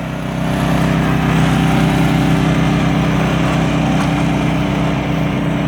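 Lawn mower engines running under throttle as the race gets under way, swelling a little in the first second and then holding steady.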